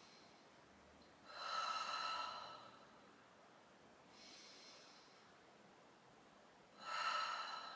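A woman breathing slowly and deeply, three audible breaths in about eight seconds, the first and last louder than the faint middle one.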